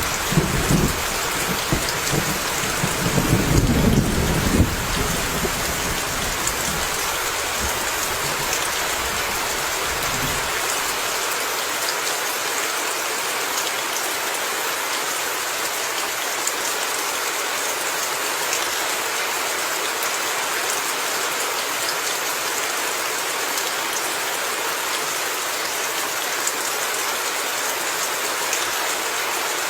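Steady rain falling, an even hiss of drops. A low rumble of thunder runs through the first few seconds and dies away by about ten seconds in.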